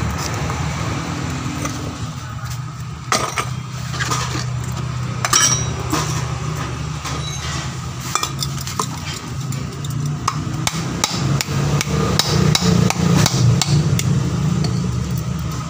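Repeated sharp metal knocks and taps at an uneven pace as the used steel oil filter canister is struck and worked on with tools, over a steady low hum.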